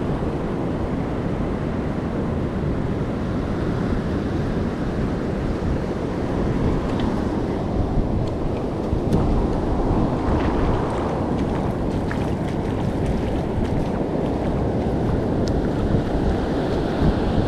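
Surf washing onto a sandy beach, a steady wash of waves, with wind buffeting the microphone.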